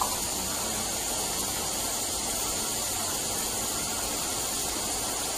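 Garden sprinklers running: a steady hiss of spraying water.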